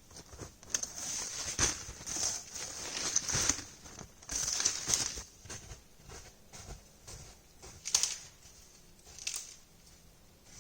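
Irregular crunching and rustling in snow, in short and longer bursts with pauses between, the longest about four to five seconds in.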